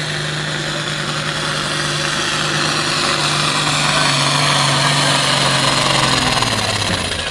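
Turbocharged International Harvester farm tractor's diesel engine running flat out while pulling a weight-transfer sled, with a high whine above the engine note. The engine gets louder, then its pitch drops in steps toward the end as the load pulls it down.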